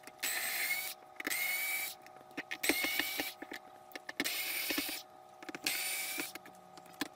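Cordless power driver backing screws out of a plastic base in about six short runs, each with a whine that rises in pitch. Small clicks and rattles of screws and bit fall between the runs.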